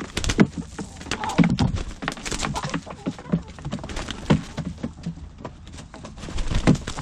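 Two hens fighting: a rapid, irregular flurry of wing flaps and knocks as they leap and strike at each other.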